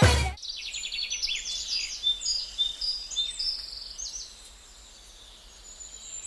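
Small birds chirping and twittering in a run of short, high calls, some quick trills among them, fading out about four seconds in.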